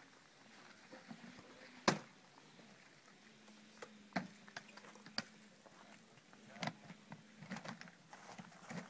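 Sparse, irregular sharp clicks and knocks, the loudest about two seconds in, over a faint steady low hum.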